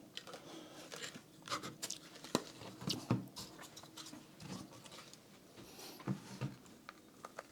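Scattered light clicks and knocks of small objects being handled and set down, a few at a time.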